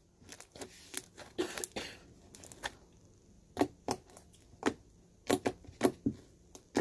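Red slime being squeezed, stretched and folded by hand on a tabletop, giving irregular sticky clicks and pops.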